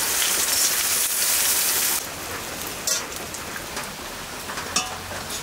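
Onions sizzling in hot oil in a wok, loud for about two seconds and then quieter, with a metal spatula clicking and scraping against a clay plate a couple of times.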